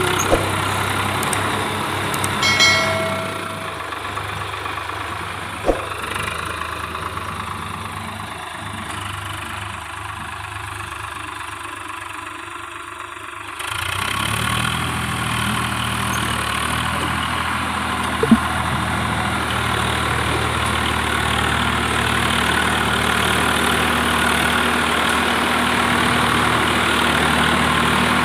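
Swaraj 855 FE tractor's three-cylinder diesel engine running under load through heavy mud, easing off for a few seconds in the first half and then running harder again. A single sharp knock sounds about two-thirds of the way in.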